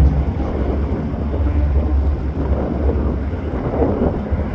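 Wind buffeting the microphone with a heavy, uneven rumble, over the noise of several cars driving past on a racetrack.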